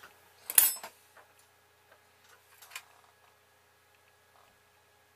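Small plastic toy cash register handled on a workbench: a quick cluster of clicks and knocks about half a second in, then a single click near three seconds.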